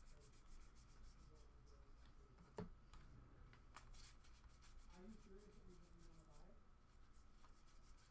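Faint rustling and light ticking of trading cards being handled and sorted from opened packs, with one sharper tap about two and a half seconds in.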